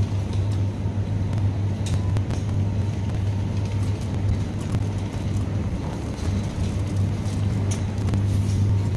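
Supermarket ambience: a steady low hum with a continuous rumble under it and a few faint clicks and knocks.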